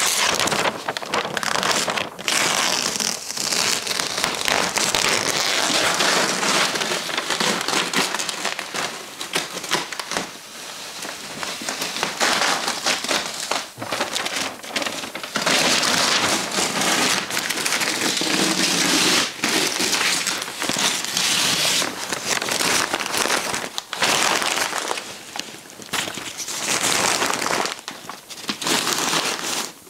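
Newsprint masking paper being peeled off a painting and crumpled, a dense crinkling and crackling rustle with short pauses.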